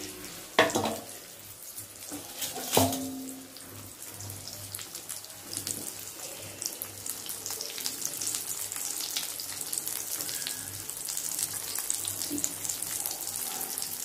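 A semolina-coated piece of fish frying in shallow oil in a kadai: a steady sizzle full of fine crackling pops that grows louder after the first few seconds. Two brief, sharp, louder sounds come in the first three seconds.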